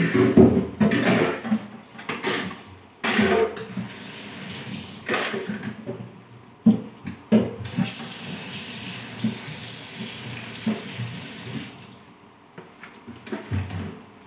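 Dishes being washed at a kitchen sink: irregular knocks and splashes of dishes being handled under the faucet, then the tap runs steadily for about four seconds from a little past halfway before it is shut off.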